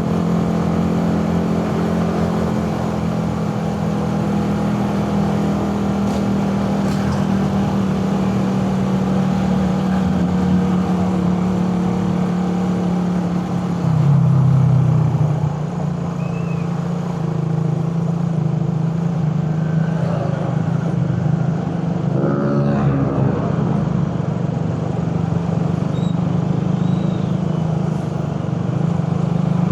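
Suzuki Raider 150 carburettor engine, a single-cylinder four-stroke, running steadily under way on the road. Its note drops in pitch and briefly gets louder about fourteen seconds in.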